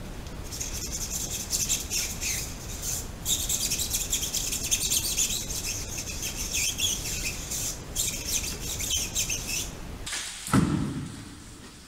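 Soapy sponge scrubbing a foam-covered car tyre and wheel: a dense, crackly rubbing with two short breaks. Near the end, a single low thump.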